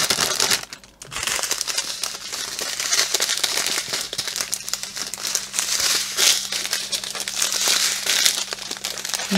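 Small plastic bags of diamond painting drills crinkling and crackling as they are handled and gathered up, with a brief lull about a second in.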